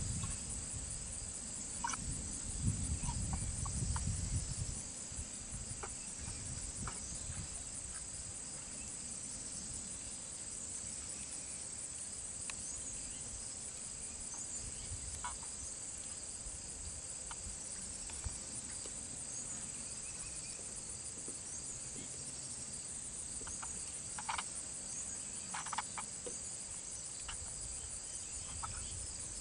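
Steady high-pitched chorus of insects such as crickets, with a few short faint chirps scattered through and a low rumble during the first few seconds.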